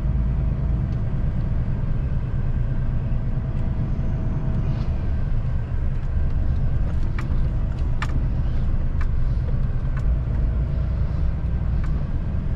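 Lorry driving, heard from inside the cab: a steady low rumble of engine and road noise, with a few light clicks and rattles in the second half.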